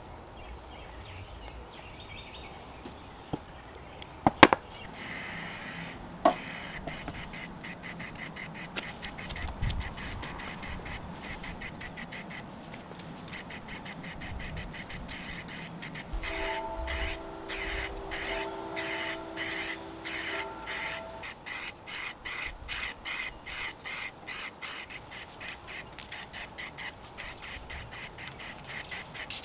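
Aerosol can of spray lacquer hissing in many short, quick bursts as a finish coat goes onto wood.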